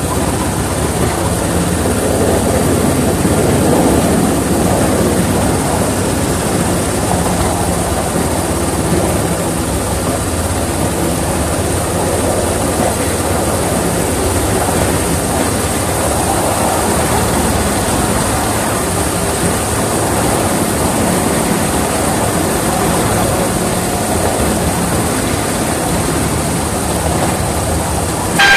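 Miniature railway train running steadily along the track, heard from the cab of its class 31 model locomotive: a continuous, even running noise with no breaks or changes.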